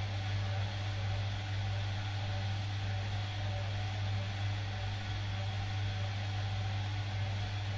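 Bosch Maxx 7 front-loading washing machine spinning its drum with a steady, even hum and no pauses, typical of the final spin. The uploader suspects the motor bearing is making noise in this last spin.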